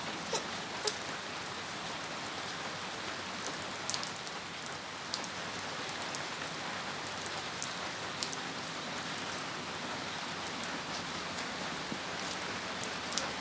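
Steady rain falling, with scattered sharper ticks of single drops striking close by.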